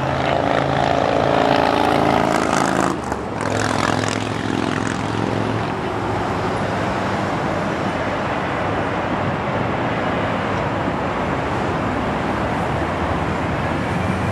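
Twin jet engines of a Boeing 737 airliner just after touchdown: a whine of several pitches for about three seconds, then a steady rush of jet noise as it rolls out along the runway toward the listener.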